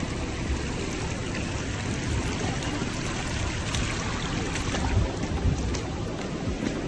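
Muddy runoff water rushing steadily across a stony path, with the occasional splash of footsteps wading through it.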